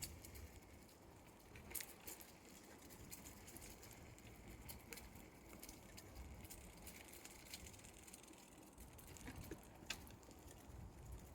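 Near silence: a faint outdoor hush with scattered light ticks and rustles.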